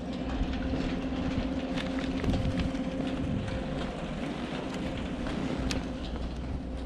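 Ski chairlift terminal machinery running: a steady low mechanical drone with a held hum, with scattered light clicks over it.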